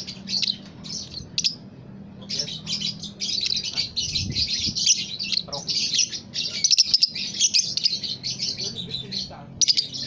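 A caged Fischer's lovebird chattering in long, rapid runs of high chirps, broken by a short pause about a second and a half in. A few sharp clicks come about seven seconds in, over a faint steady low hum.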